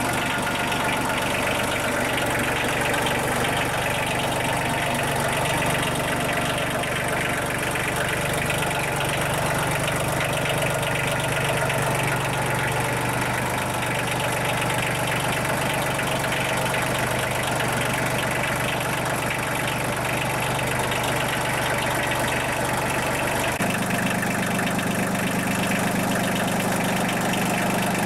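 Diesel engine of a Mahindra compact tractor idling steadily.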